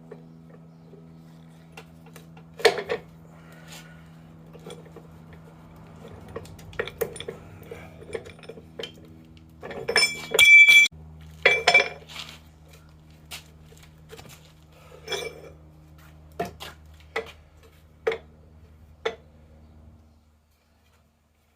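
Scattered metal clinks and knocks as a rusty axe head is worked in an arbor press, with a loud ringing clank and rattle of metal about ten seconds in, over a steady low hum.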